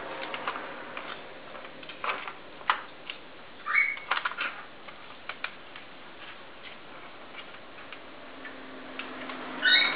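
A ball clicking and rattling in a plastic circuit track toy as a ferret paws at it, in irregular clicks and knocks. There is a short high sound about four seconds in and another just before the end.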